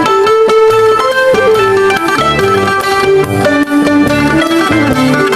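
Loud background music led by a plucked, guitar-like melody over a steady low beat.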